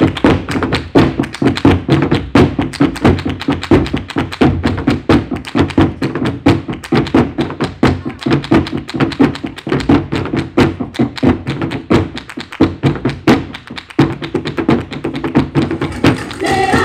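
Flamenco footwork (zapateado): fast runs of shoe strikes on a stage floor, with hand clapping (palmas).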